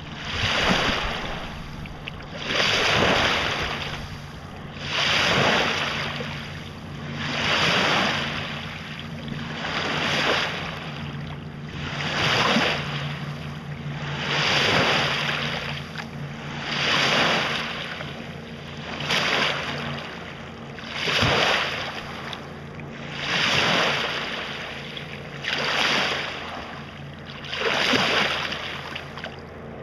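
Small freshwater waves on Lake Michigan lapping and washing onto the shore at the water's edge. Each wash swells and falls away, about one every two seconds.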